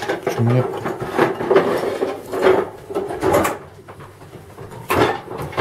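Kitchen drawer being rummaged through, utensils rattling and rubbing against the wood for a few seconds, then a sharp knock near the end.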